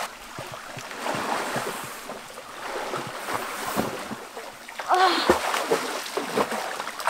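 Water splashing and sloshing as a person swims through a shallow stream pool. The rush of flowing stream water runs underneath, and a short voice-like sound comes about five seconds in.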